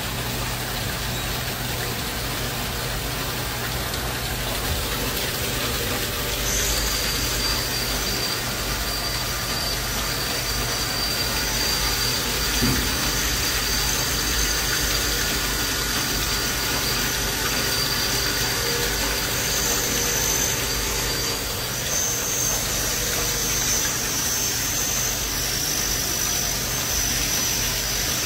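1995 Makino A-55 CNC horizontal machining center running, a steady mechanical hum with a high steady whine that comes in about six seconds in. One short thump about halfway through.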